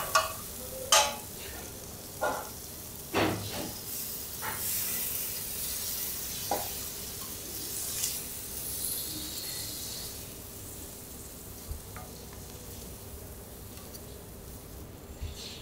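Food sizzling on a teppanyaki iron griddle, with four sharp knocks and scrapes of metal spatulas on the hot plate in the first few seconds, then a steady sizzle.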